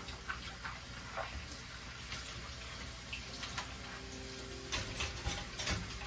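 Dishes being washed by hand at a stainless-steel sink: water running and splashing, with light clinks and knocks of dishware and a quick cluster of sharper clinks about five seconds in.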